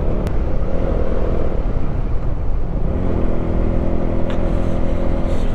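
Motorcycle engine running at steady revs while riding, under a constant rumble of wind and road noise.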